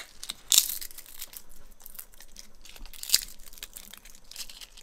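Dried chili peppers being crushed and broken apart between the fingers, a dry crackling and crunching with a few sharp snaps.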